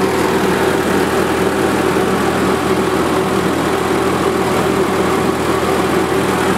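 1943 Minneapolis-Moline anti-aircraft gun generator set's engine running steadily while powering household loads, an even, unchanging engine note.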